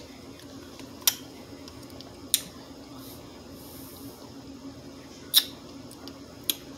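Sharp mouth clicks and lip smacks, four of them spread over several seconds, while sipping a thick fruit smoothie through a straw, over a steady low hum.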